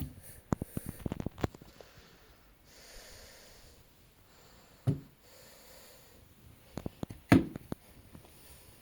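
A quick run of knocks and clicks in the first second and a half, then two single thumps, one about five seconds in and a louder one about seven and a half seconds in.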